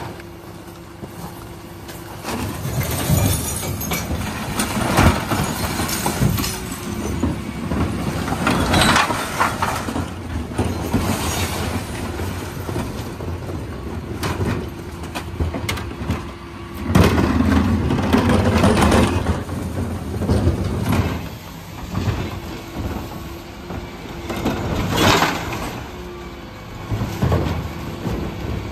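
Dennis Elite 6 refuse truck running with a steady hum while its rear bin lift tips wheelie bins into the hopper. Several loud bangs and clatters come every few seconds as bins knock against the lift and recycling drops in, with one longer spell of loud crashing about two-thirds of the way through.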